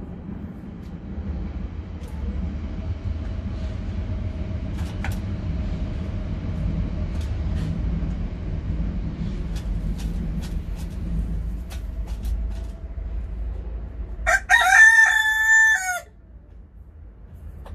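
A rooster crows once, loud and under two seconds long, about 14 seconds in, over a steady low rumble that fades away just before the crow.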